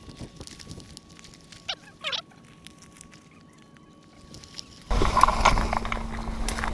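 Two short, gliding bird calls in quick succession over faint outdoor background. A little past the middle, a much louder rush of noise with a steady low hum cuts in suddenly.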